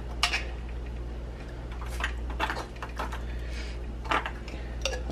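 Seasoning shaker (garlic powder) shaken and tapped over a raw turkey: light, irregular clicking taps, about a dozen across a few seconds, over a steady low hum.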